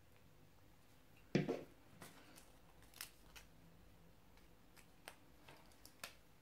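A plastic glue stick set down on a wooden tabletop with a short knock, followed by several faint paper clicks and rustles as folded sticky-note petals are pressed together.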